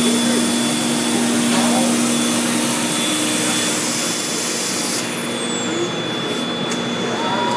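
Komo VR510 CNC router cutting Starboard polymer sheet: a steady machine whine with a loud high hiss of the cutter and extraction, which cuts off abruptly about five seconds in while the machine keeps running.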